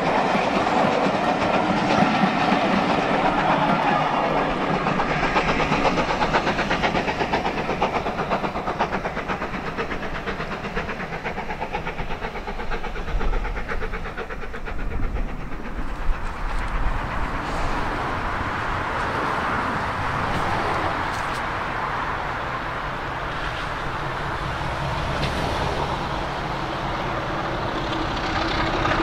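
A steam-hauled train rolling past and drawing away, its coach wheels clicking over the rail joints as the sound slowly fades. Later a diesel locomotive's engine is heard approaching and growing gradually louder.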